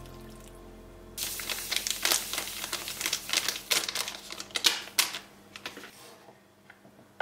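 Granulated erythritol poured from a bag into a ceramic bowl: a rapid, crackly patter of sugar grains lasting about four seconds, then a few lighter ticks.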